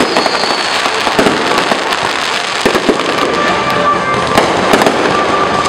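Aerial fireworks display: firework shells bursting overhead in a dense, unbroken run of sharp pops and crackling.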